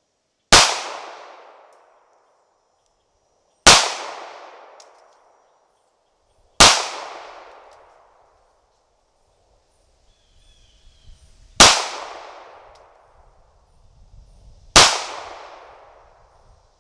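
Five shots from a Ruger LCP II .380 ACP pocket pistol, each a sharp crack trailing off over a second or so. The first three come about three seconds apart, then a longer pause before the last two.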